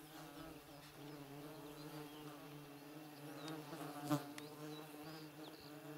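A flying insect buzzing close to the microphone, a steady hum that wavers a little in pitch, with one brief knock about four seconds in.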